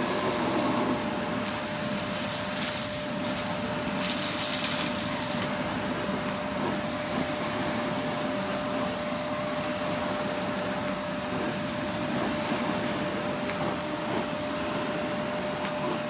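Miele Blizzard CX1 bagless cylinder vacuum cleaner running on maximum power while its floor head is worked over carpet: a steady motor whine with a hiss of air. There are brief louder hissing surges about two and four seconds in.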